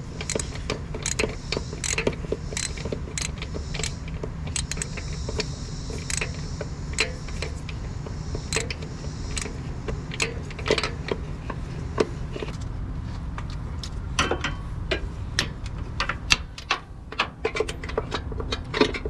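Metal hand tools and car parts clinking and clicking irregularly during under-hood work on a PCV valve, over a steady low rumble.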